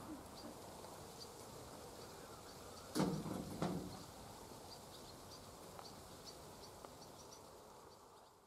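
Faint summer field ambience with insects chirping, a high ticking that repeats a few times a second. Two knocks about three seconds in, half a second apart, stand out as the loudest sounds.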